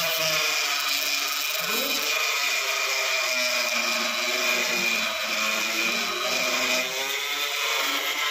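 INECO mini rotary grinder on its lowest speed setting, sanding carved wood with a small sanding drum. The motor gives a steady high whine that wavers slightly in pitch as the drum bears on the wood.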